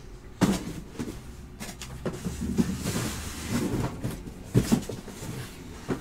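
Cardboard card boxes and their case being handled and set down: several knocks and thumps, the loudest about half a second in and again after four and a half seconds, with scraping and rustling of cardboard between.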